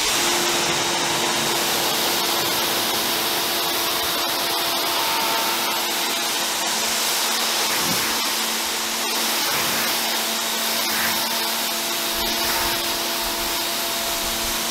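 Giraffe Tools 1600 PSI electric pressure washer running, its motor giving a steady hum under the hiss of the water jet as it rinses foam off a car's paint; the spray starts abruptly at the beginning.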